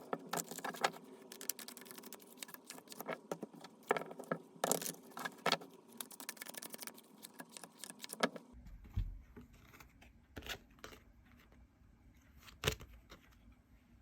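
Tarot cards being shuffled and handled by hand: a dense run of quick card clicks and rustles that thins out about eight seconds in to a few separate taps over a low rumble.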